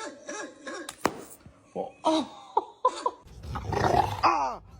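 A dog grumbling and growling in short vocal bursts. The growl grows louder and rougher near the end, with a sharp click about a second in.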